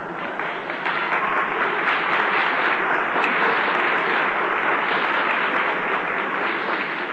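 Audience applauding, a dense clapping that swells about a second in and dies away near the end.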